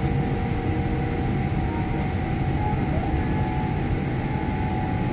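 Cabin noise of a Boeing 787-9 taxiing after landing: a steady low rumble from the wheels and airframe, with the Rolls-Royce Trent 1000 engines at idle and a few faint steady tones above it.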